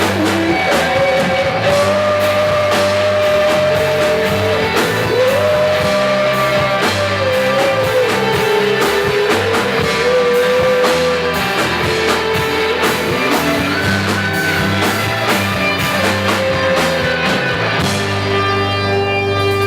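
Rock music with guitar and drums under a gliding lead melody line, likely a voice, playing steadily at full loudness.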